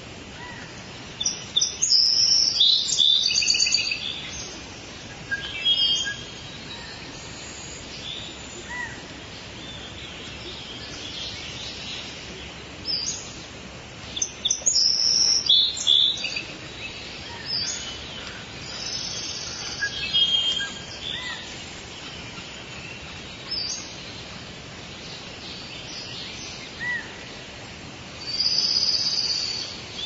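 Rainforest ambience: birds calling and chirping in high, twittering bursts that come and go in clusters, over a steady background hiss.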